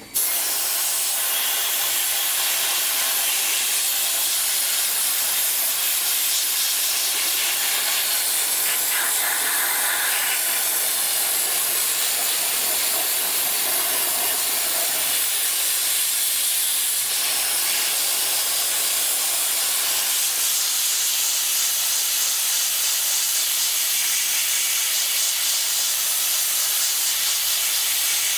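Dry ice blasting gun firing a compressed-air stream of dry ice against a car's underside: a loud, steady hiss that cuts in suddenly as the trigger is pulled.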